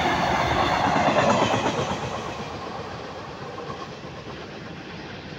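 Indian Railways goods train's tail end rolling past on the rails, the wheels and wagons loud for about the first two seconds. The noise then fades steadily as the train moves away.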